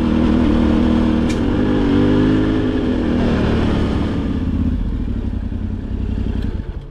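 Motorcycle engine running steadily under way, fading away after about four and a half seconds.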